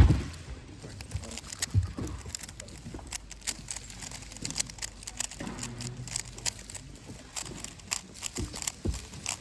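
A sharp thump at the start, then a speedcube being turned quickly: a dense, irregular run of light plastic clicks.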